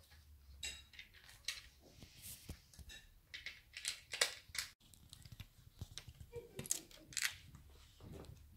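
Plastic Lego bricks clicking and tapping as they are pressed together onto a baseplate and picked from loose pieces on a glass table top, in short irregular clicks.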